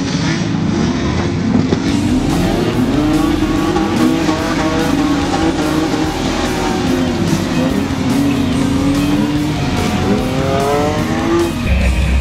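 Several stock-car engines racing on a dirt track, their overlapping notes rising and falling as the drivers rev up and lift off. Just before the end the engines give way abruptly to loud music.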